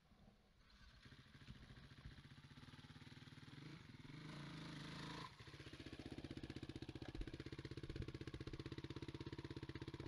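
Enduro dirt bike engine running, building up in revs with a rising pitch over the first five seconds, then dropping back sharply and running steadily with a fast even pulse.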